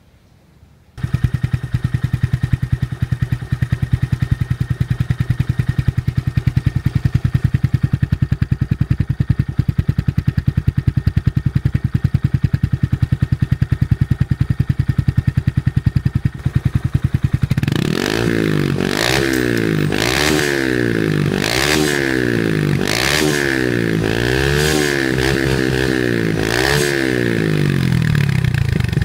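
Honda MSX125's single-cylinder four-stroke engine through a Leovince slip-on exhaust: it cuts in about a second in and idles steadily, then is revved in a string of quick throttle blips, each pitch rising and falling, before settling back to idle near the end.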